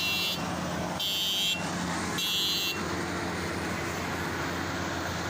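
Combine harvester engine running steadily. Over it, a high-pitched electronic warning beeper sounds three times, each beep about half a second long and about a second apart, then stops.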